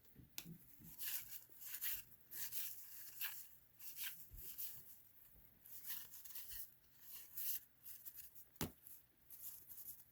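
Cardboard trading cards (1990 Fleer basketball) being flipped through and slid against one another by hand: faint, quick rustles and scrapes, with one sharp click near the end.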